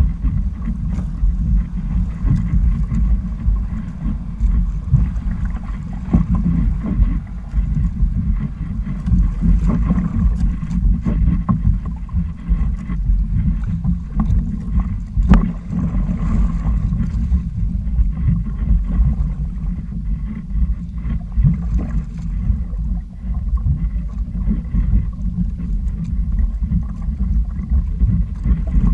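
Wind buffeting the microphone of a sailing outrigger kayak out on choppy sea, a low rumble. Water slaps and splashes against the hulls, with many short slaps and one louder one about fifteen seconds in.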